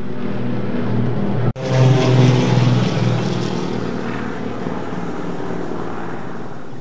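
Piper PA-31 Navajo's twin piston engines and propellers droning as it flies past, a low, steady pitched drone. It cuts out briefly about a second and a half in, comes back at its loudest, then slowly fades.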